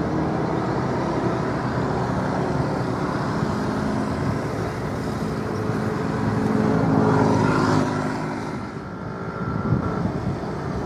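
An engine running steadily with an even hum, swelling slightly about seven seconds in and then easing off.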